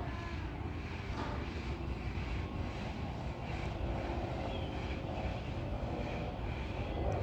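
Airbus A350-900's Rolls-Royce Trent XWB turbofan engines at takeoff/climb power, a steady rumble with faint steady tones in it.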